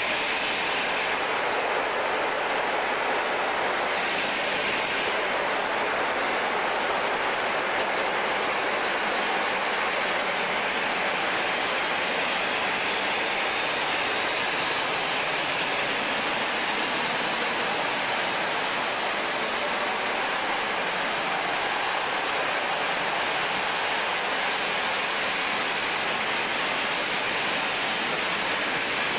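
Diesel locomotive standing at the platform with its engine running: a steady rushing noise, with a faint whine that slowly rises in pitch partway through.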